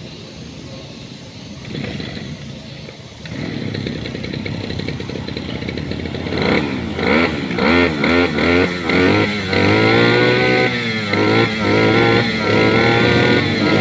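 Engine running and being revved repeatedly: it picks up about three seconds in, then from about halfway through the pitch rises and falls in quick blips, and near the end it holds at a higher speed with more revs.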